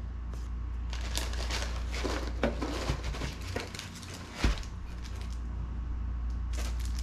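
Packaging being handled by hand: crinkling and rustling in short bursts, with one sharper knock about four and a half seconds in, over a steady low hum.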